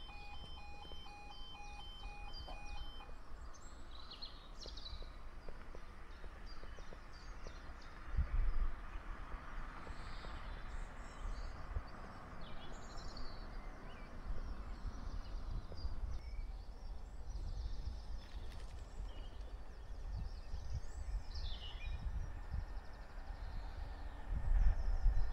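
Level crossing warning alarm sounding as repeated short electronic tones while the barriers come down; it stops about three seconds in. Then birds chirp over steady background noise, with a low rumble about eight seconds in and again near the end.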